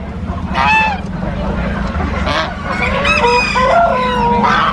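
Geese honking: several short calls, then a run of overlapping honks from a few birds about three seconds in, over a steady low hum.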